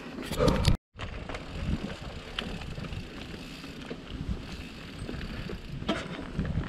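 Wind buffeting a chin-mounted action camera while a mountain bike rolls along a dirt trail, with scattered small clicks and rattles from the bike. The sound cuts out completely for a moment just under a second in.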